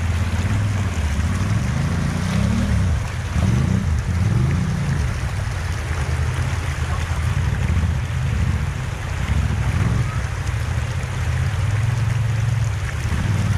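Side-by-side UTV engine running and revving up and down as the machine crawls through a rocky river, over the steady rush of the river's rapids.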